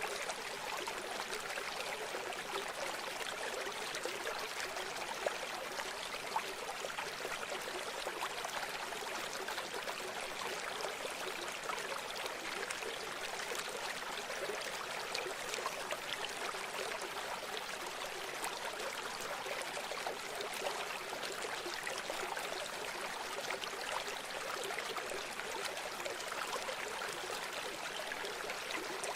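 A river's water flowing in a steady, continuous rush, with a few slightly louder splashes about five and six seconds in.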